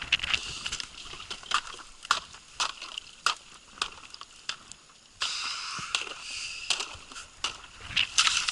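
Ice breaking up: a rapid, irregular series of sharp cracks and crunches over a hiss, with a short lull about four to five seconds in.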